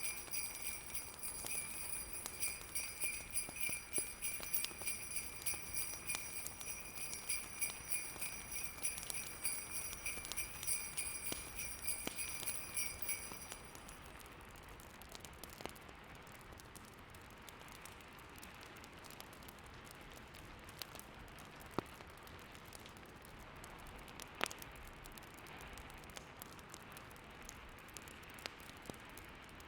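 Sleigh bells jingling in a steady shaking rhythm over a fire crackling and a low hiss of storm wind. The bells stop a little under halfway through, leaving the fireplace crackling with occasional sharp pops against the steady hiss.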